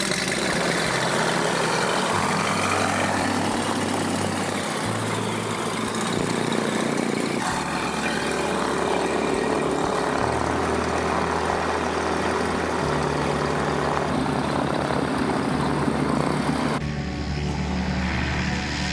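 Breezer Sport light aircraft's Rotax flat-four engine and two-blade propeller running at power on its take-off run, a steady dense drone that thins out abruptly near the end as the plane moves away.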